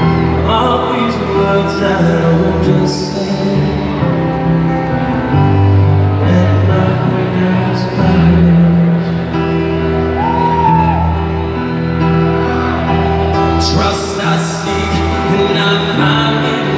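Live rock band performing a song, with a male lead singer singing over keyboard, bass and drums, heard through a concert sound system.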